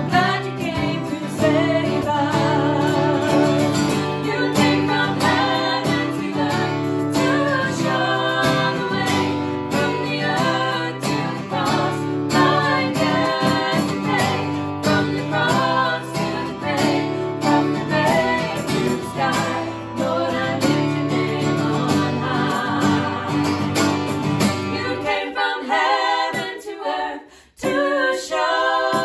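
Live worship song: three women singing together over a strummed acoustic guitar. The guitar drops out about 25 seconds in, leaving the voices alone.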